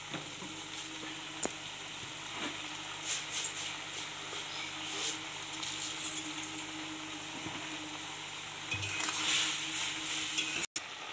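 Spinach and mixed vegetables sizzling in oil in a kadai, a steady hiss with scattered crackles. A metal spatula stirs them near the end.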